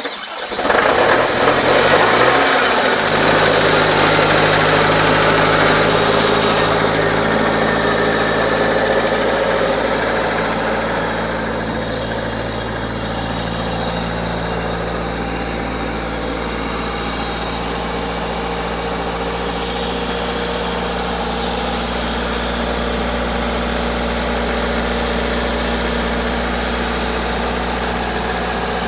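Diesel engine of a CompAir C60-12 portable air compressor starting up. It rises in speed over the first three seconds, then runs steadily.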